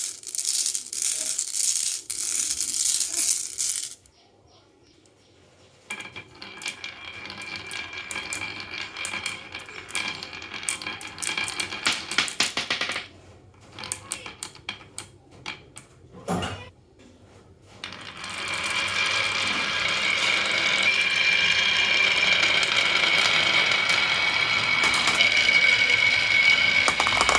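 Marbles rolling and clattering down a rain-gutter and wooden-rail marble run. It begins as a dense rattle of clicks, then goes quiet briefly. A clicking roll follows, with a single knock past the middle, and then a long, loud, steady rolling run with a ringing tone through the last third.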